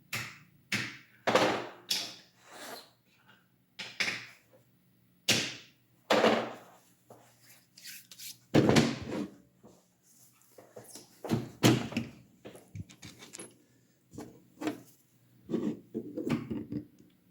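Irregular knocks, clicks and scrapes of hard plastic parts being handled and fitted into a 3D-printed paintball trigger frame, about a dozen spread unevenly, over a faint steady hum.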